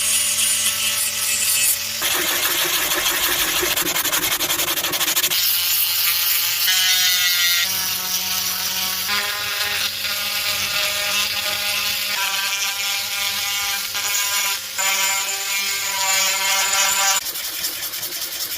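A small handheld power tool working wood, its motor whine shifting pitch every second or two, with stretches of rough grinding noise.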